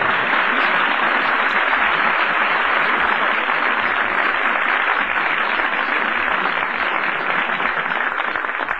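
Studio audience applauding on a 1951 radio broadcast recording, a steady clapping that begins to die down near the end.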